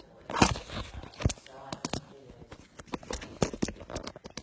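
Irregular sharp clicks and knocks, several a second, the loudest about half a second in and again just after a second, with faint speech beneath them.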